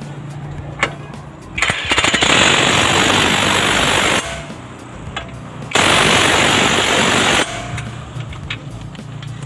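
Pneumatic impact wrench running in two bursts, the first about two and a half seconds and the second about a second and a half. It is tightening the bolts of a car's front suspension lower arm and shock.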